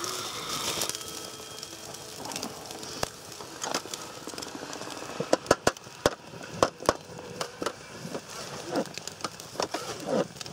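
Crackling and sharp clicks from a wood-fired grill and a knife cutting grilled beef on a plastic cutting board, with a cluster of loud knocks about five to seven seconds in.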